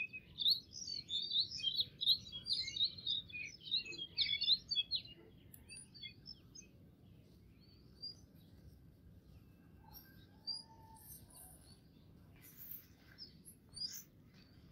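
Small birds chirping: a dense run of rapid, high chirps over the first five seconds or so, then scattered single chirps, with a couple of soft knocks near the end.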